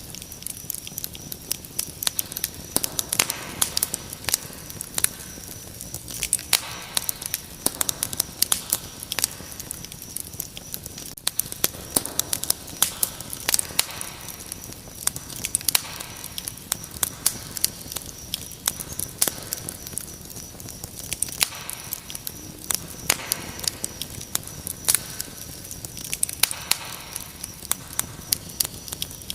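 Wood fire crackling, with frequent sharp pops and snaps, over a steady high-pitched cricket trill.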